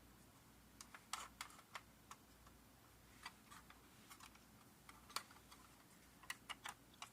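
Faint, irregular light clicks and taps of a small 3D-printed wheel being handled and test-fitted onto a 1:24 diecast model car's metal axle.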